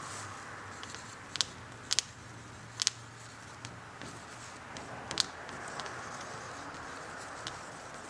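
Sharp little ticks and scrapes of a writing tip on a transparent pane as letters are written, the loudest four in the first five or so seconds, with a low hum that fades about halfway through.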